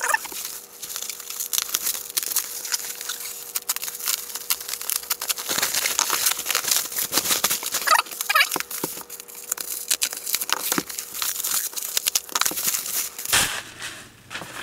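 Bubble-wrap packaging crinkling and crackling as it is cut open and pulled off a laptop, sped up four times: a dense, irregular run of crackles that eases off near the end.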